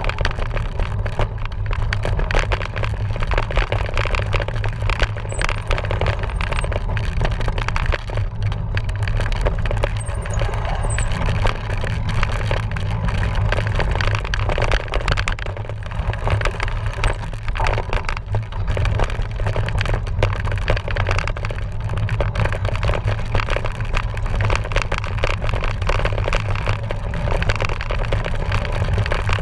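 A cyclocross bike rattling and scraping over rough trail, with a constant low wind rumble on the microphone and many small knocks throughout.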